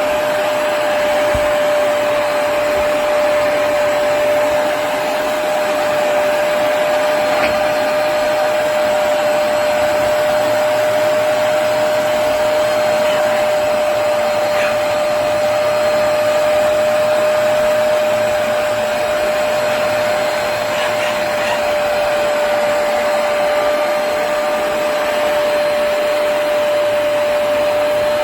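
Hoover PowerDash Pet+ compact carpet cleaner running steadily: a constant whine over an even rushing air noise.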